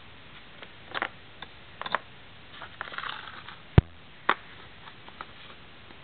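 Handling noise from small polymer clay figurines being picked up, swapped and set down on a tabletop by hand: scattered light clicks and taps with a brief rustle, and one sharp thump, the loudest sound, about two-thirds of the way through.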